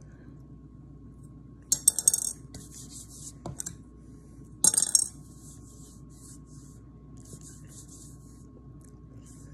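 Short bursts of light clinking and rattling from small hard objects being handled, the loudest about two seconds in and again near five seconds, with a single click between them, over a faint steady hum.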